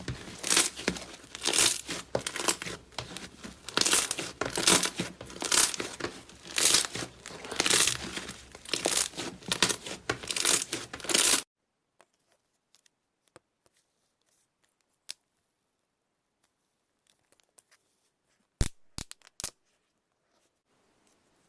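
Slime being squeezed and pulled apart, a crackling, tearing noise that swells and fades in quick pulses. About eleven seconds in it cuts off abruptly, leaving only scattered faint clicks and a few sharp clicks near the end.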